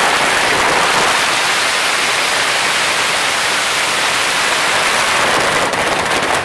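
A long string of firecrackers going off, the bangs so rapid they merge into a loud, continuous crackling rush; near the end it thins into separate cracks.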